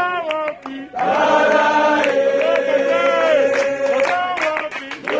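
Voices singing a chant together in long held notes. They thin out briefly during the first second, then carry on steadily.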